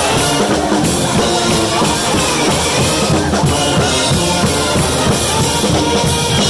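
Pep band playing loudly: sousaphones, saxophones and trumpets over a drum kit with cymbals.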